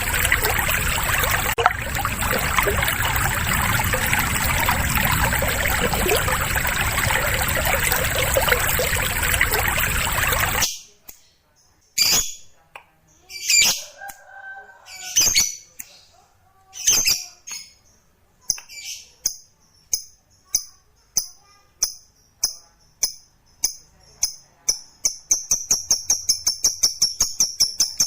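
Steady rushing-water noise with a thin high whistle, cutting off abruptly about ten seconds in. Then a lovebird calls: a few separate harsh chirps, followed by a run of repeated chirps that speeds up into a fast chattering trill, the lovebird's 'ngekek' song.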